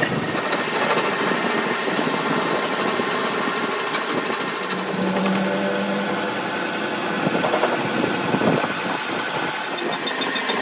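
Metal lathe running and cutting steel, its tool turning down the welded section of a truck axle shaft. A steady machine drone with cutting noise, a little louder for a moment or two around the last third.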